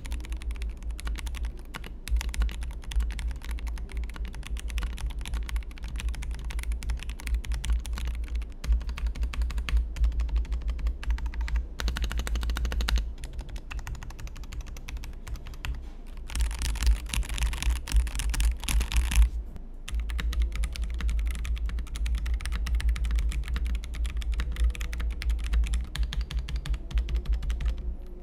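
Typing test on a Rexus Daxa M100X Ultimate full-size mechanical keyboard, gasket-mounted with a polycarbonate plate: a steady stream of keystrokes, with a faster, louder flurry of typing a little past halfway.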